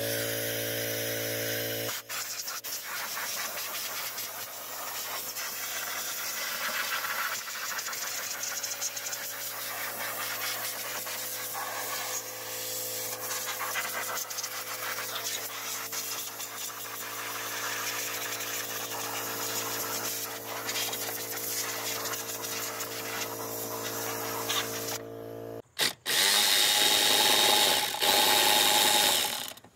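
A machine motor running with a steady low hum. It cuts out about 25 seconds in, and a few seconds of louder, harsher noise follow near the end.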